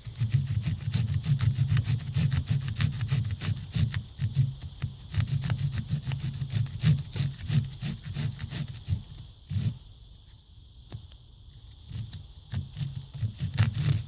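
Quick back-and-forth strokes of a hand tool rubbing against the piece, trimming it by hand. The strokes pause about nine seconds in and start again near the end.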